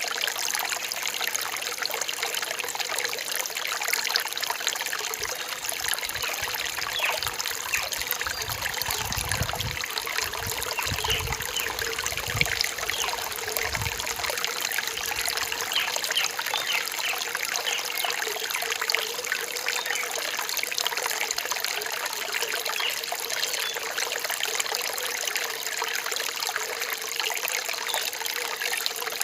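Small forest stream trickling and splashing over rocks, a steady bright hiss of water. A low rumble comes and goes in the middle.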